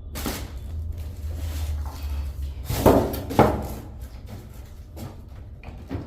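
Handling noise from a heavy portable air conditioner being gripped and shifted: a low rumble, then two loud knocks about half a second apart, and a couple of lighter clicks near the end.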